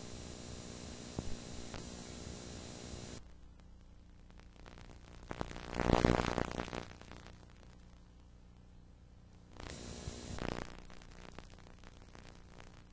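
Electrical buzz and hiss from a videotape transfer, cutting off suddenly about three seconds in. A louder rush of noise swells and fades around six seconds, and the buzz comes back briefly near ten seconds.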